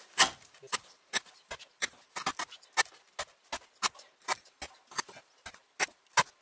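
Carpenter's axe (Toporsib Plotnik No. 2) pressed straight down through hemp rope onto a soft cedar board, cut after cut: a quick run of sharp knocks, about two or three a second, played back sped up. These are repeated cuts testing how long a freshly sharpened carpenter's edge stays sharp.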